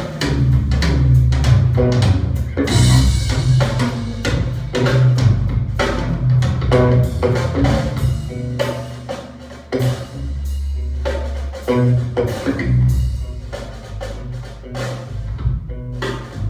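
Recorded music with a drum kit and deep bass notes, played back through a hi-fi system: an ECDesigns Power DAC R and an F2a tube amplifier driving tall full-range loudspeakers.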